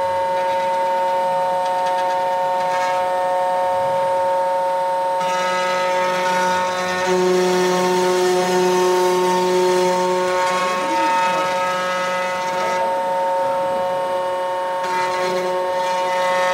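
Desktop CNC wood router at work: the spindle runs with a steady high whine over the hiss of the bit cutting, and the hiss eases off twice for about two seconds.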